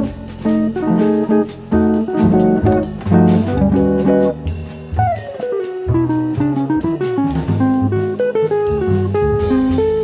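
Jazz combo music. A guitar is to the fore, playing chords and lines over walking bass and drums with cymbal strokes, and one note slides down about halfway through.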